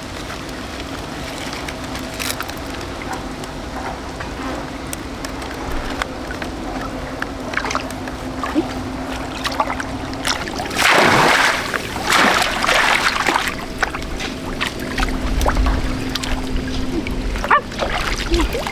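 Water sloshing and splashing, with a louder splashing stretch a little past the middle, over a steady low hum.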